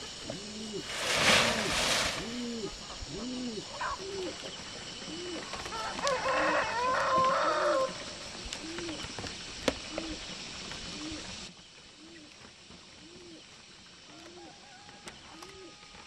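A rooster crows once, about six seconds in, over a low call that repeats steadily about every two-thirds of a second. A brief rush of noise comes about a second in, and the background hiss drops away after about eleven seconds.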